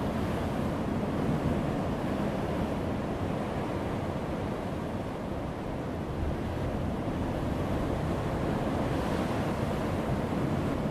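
Heavy ocean waves breaking on a rocky seashore: a continuous deep wash of surf that eases slightly around the middle and builds again.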